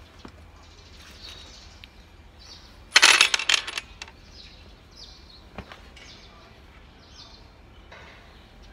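Loose metal parts clinking and rattling together in a short burst about three seconds in, with a few lighter clicks afterwards.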